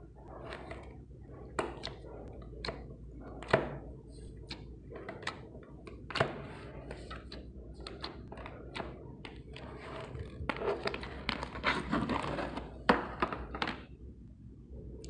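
Clear jelly slime being pressed and squished by fingers, giving irregular sticky clicks and pops, with a denser run of squishing about ten seconds in and a couple of louder pops.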